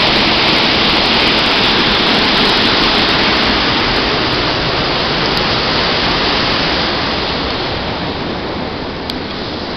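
Waterfall: a steady, loud rush of falling water, growing a little quieter near the end.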